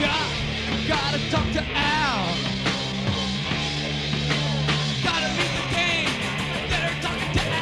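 A live punk rock band playing loud and fast, a drum kit driving it under held low bass notes.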